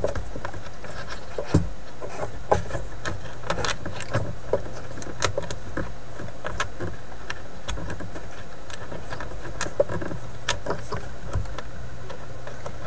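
Irregular small clicks, taps and light rattles of hands handling wires and small parts inside a tube record player's cabinet, over a steady low hum.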